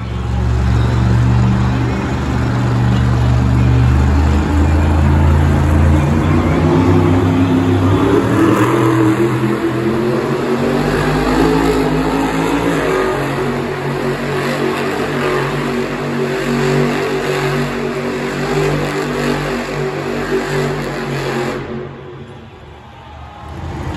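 Monster truck's supercharged V8 engine running loud and revving, its pitch climbing around the middle. The engine sound drops away briefly near the end.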